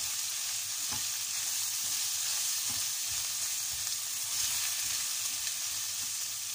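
Chicken pieces sizzling steadily in hot oil in a metal pan while being stirred with a wooden spatula, with a few soft knocks of the spatula against the pan.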